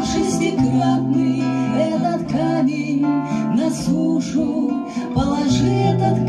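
Two women singing a song together, accompanied by a strummed acoustic guitar.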